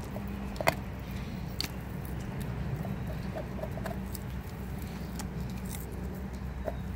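A German Shepherd gnawing and chewing on a raw meaty bone, with irregular sharp clicks of teeth on bone; the loudest crack comes just under a second in. A steady low hum lies underneath.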